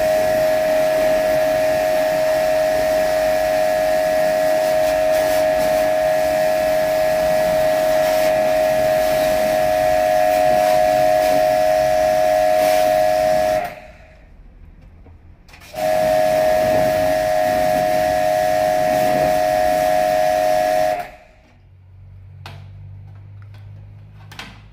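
Electric pressure washer running: a steady high whine over the hiss of the water jet. It cuts out for about two seconds a little past halfway, starts again, and stops a few seconds before the end, leaving only a faint low hum and a couple of sharp clicks.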